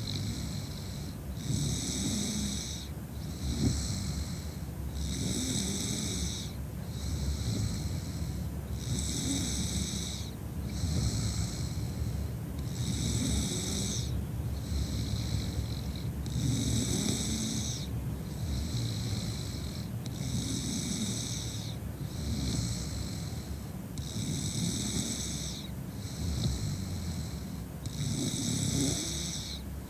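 A drunk woman snoring steadily in her sleep: a rough low rattle with a breathy hiss on each breath, in an even rhythm.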